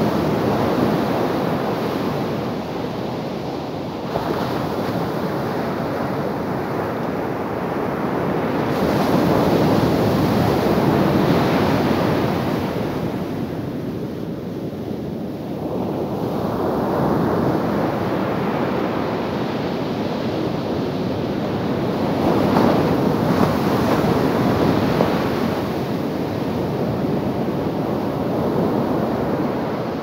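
Sea surf breaking and washing up a sandy beach: a continuous rush of water that swells as each wave breaks and eases between them, dropping off for a couple of seconds about halfway through.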